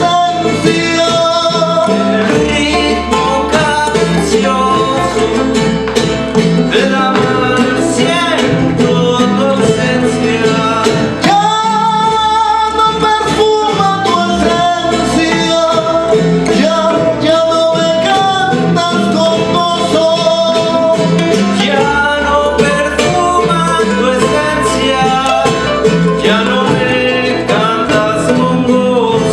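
Son jarocho ensemble playing: strummed jaranas and a plucked requinto jarocho over a steady bass, with singing.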